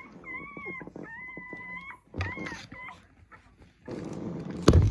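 A week-old puppy crying: two long, high, level-pitched whines, then a few short squeals. Near the end comes a rustle and a couple of loud knocks.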